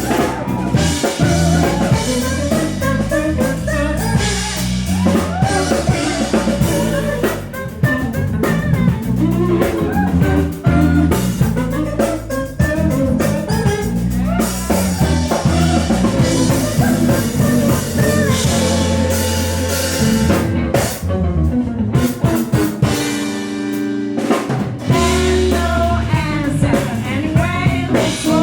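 Background music: a song with drum kit, bass line and singing.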